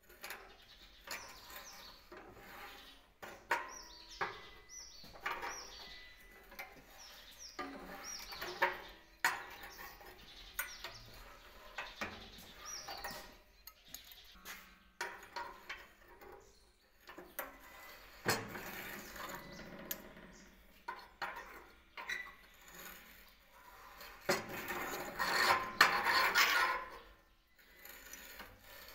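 Hand-operated rebar stirrup bender in use: the steel bar and bender knock, clink and scrape against the bender's pins and the steel table as the lever is swung, in irregular metallic clicks with some brief ringing. Near the end there is a longer, louder scraping rub.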